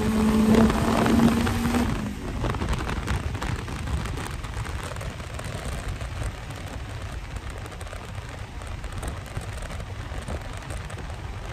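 Turbocharged Honda K24 engine of an Acura RSX heard from inside the cabin: its steady drone stops about two seconds in, leaving low road rumble and wind buffeting the microphone as the car rolls on.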